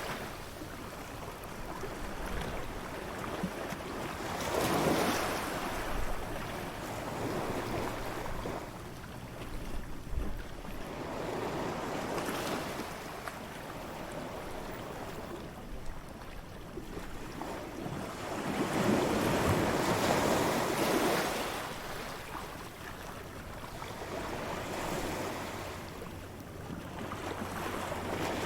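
Ocean waves breaking and washing up a beach in slow, irregular swells a few seconds apart, the largest wave about two-thirds of the way through, with a light wind.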